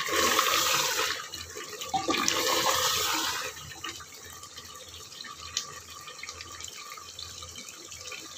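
Mutton with sour yogurt and spices sizzling in an aluminium pot while it is fried down and turned with a wooden spatula. The sizzle comes in two louder surges over the first three and a half seconds as the meat is turned, then settles to a quieter steady sizzle.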